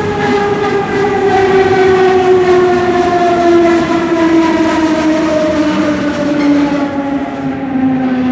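Berlin S-Bahn class 485 electric train's traction motors whining over the rumble of the wheels. The whine is a chord of tones that falls steadily in pitch as the train slows into a station.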